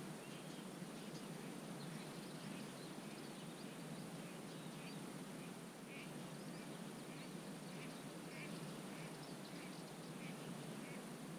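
Wetland ambience: birds giving many short, high chirps scattered throughout, over a steady low background noise.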